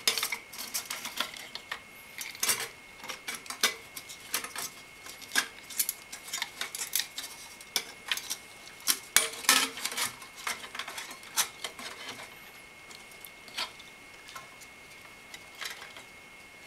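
Irregular clicks, taps and scrapes of a plastic 120 mm PC fan being handled and pushed into place between the aluminium fin towers of a Cooler Master V8 GTS CPU cooler. The handling sounds come thick and fast, then thin out after about twelve seconds.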